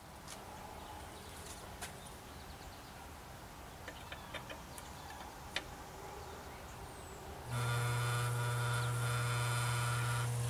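A few faint clicks of a screwdriver at a thermostat control box, then about 7.5 s in a new attic exhaust fan motor switches on and runs with a steady electric hum.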